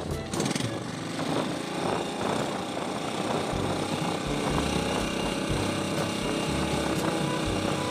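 A small boat engine running steadily, with splashes and dull thuds as a wooden pole is plunged again and again into the water to drive fish.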